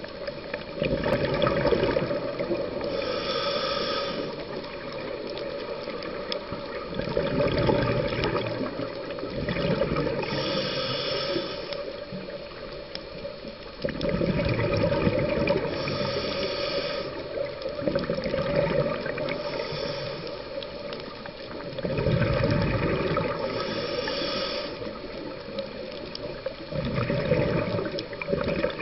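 Scuba diver breathing through a regulator underwater: a hiss on each inhale alternating with a rush of exhaled bubbles, repeating every few seconds.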